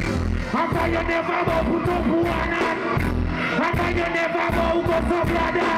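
Live reggae band playing loud through the sound system, a deep bass note pulsing about once a second, with a male vocalist singing over it.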